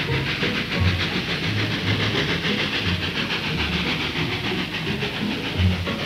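Narrow-gauge steam train running: steady steam hiss over a fast, even rhythm, with irregular low thumps underneath.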